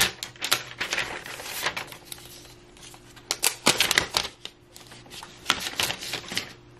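Protective wrapping being peeled off a new iPad Air: irregular crackles and rustles, loudest a little past the middle and again near the end.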